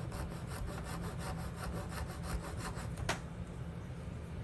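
Small hacksaw cutting through a wooden dowel in quick, even strokes, about six or seven a second. About three seconds in the strokes stop with a single sharp click.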